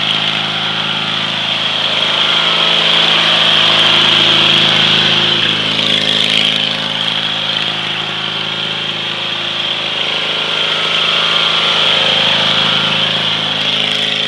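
Small lawn-tractor engine running steadily under load on a home-built four-wheeler, its sound swelling and easing a little as it is driven.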